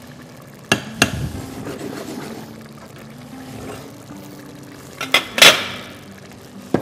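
Steel cooking pot clanking against the metal grates of a gas hob as it is shifted and lifted off, with the liquid sauce sloshing inside. There are two sharp knocks about a second in, a louder clatter about five seconds in, and one more knock at the end.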